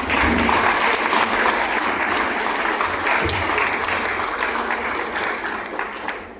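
Audience applauding: a dense patter of many hands clapping that tapers off near the end.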